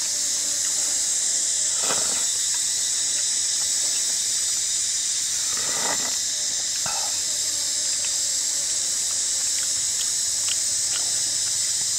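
A person eating curry: a short mouth sound about two seconds in, then a slurp about six seconds in as broth is sipped from a coconut-shell bowl. A steady high hiss runs underneath throughout.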